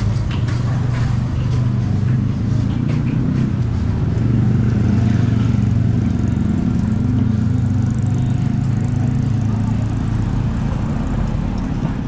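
A vehicle engine running steadily, a loud low hum, with street traffic around it.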